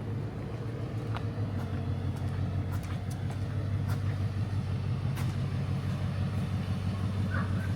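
Ford Mustang V8 engine idling steadily, a low even hum that grows slightly louder.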